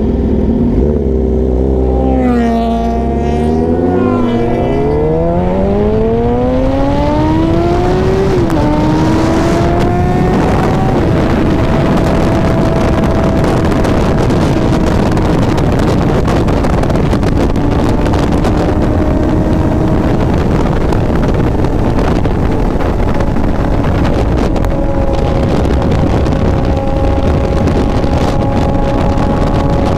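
Sportbike engine blipping its revs, then pulling away and accelerating through the gears, with an upshift about eight seconds in. After that it runs at steady revs, half buried in heavy wind noise on the microphone.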